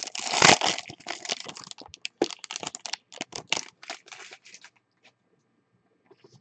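Foil trading-card pack wrapper being torn open and crumpled: a dense crinkling for the first two seconds, thinning to scattered crackles that stop a little before the end.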